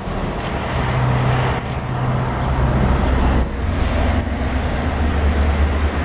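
A motor vehicle's engine running close by, a steady low hum whose pitch drops about three seconds in.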